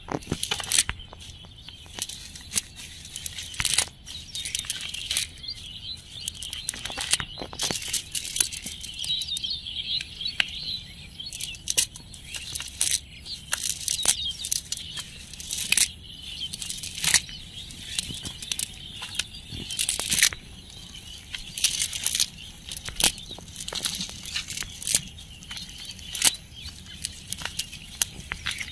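Small fish flapping on grass and a nylon cast net rustled by hand as the catch is picked out: many short, irregular flaps and rustles, with a steady high-pitched drone behind.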